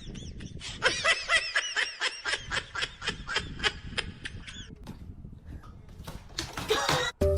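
A person laughing hard in a rapid run of short, high-pitched bursts, about four a second, stopping about two-thirds of the way through.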